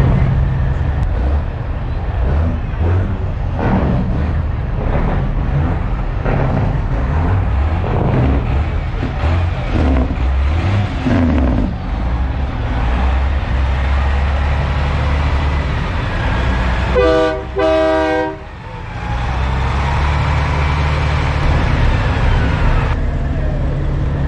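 Diesel semi trucks idling with a steady low rumble, with people chattering over it in the first half. About seventeen seconds in, a truck horn blasts twice in quick succession, about a second and a half in all.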